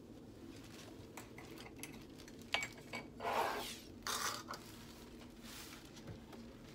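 Kitchen handling sounds: a sharp click of a measuring spoon about two and a half seconds in, then a few short rustling swishes as an arm moves over the mixing bowl and the spoon is set down on a saucer.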